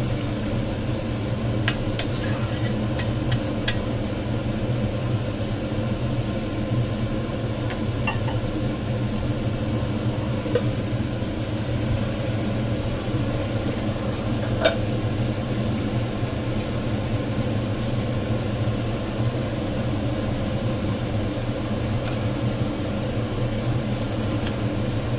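Metal spatula clicking and scraping against an aluminium kadai as the pointed gourd and potato curry is stirred, a quick run of sharp clinks in the first few seconds and another pair about halfway through, over a steady low kitchen hum.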